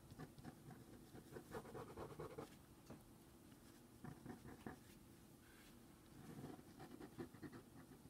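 Faint, irregular scratching of a fine-tip ink pen drawing short strokes on watercolor paper.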